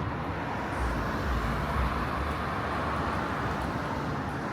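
Road traffic noise on a city street: a steady hiss of passing vehicles, with a low engine rumble swelling about a second in as a vehicle goes by.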